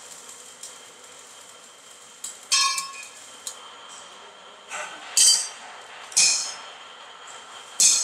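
Steel concrete-mixer drum being struck by a metal tool, about five sharp ringing clanks at uneven intervals, the loudest a little past the middle.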